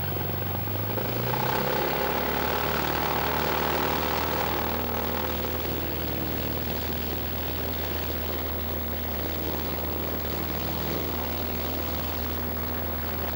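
Single-engine Cessna's piston engine and propeller heard from inside the cabin, rising in pitch about a second in as power comes up and running loudest for a few seconds. Around five seconds in it eases back to a lower, steady drone.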